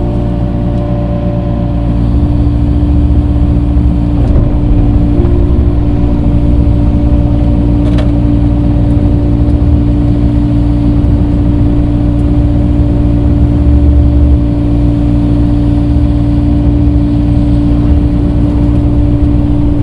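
Tractor engine running steadily under load as the front loader spreads dirt, a little louder from about two seconds in.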